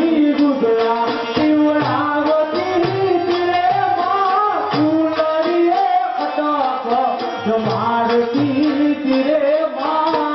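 A Gujarati folk-theatre song sung into a microphone, the melody holding notes and sliding between them, with hand drums beating a steady rhythm underneath.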